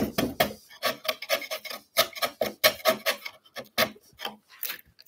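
Wood chisel paring into the end of a clamped board: a quick run of short, irregular scraping cuts, several a second, as it shaves waste down towards the scribe line.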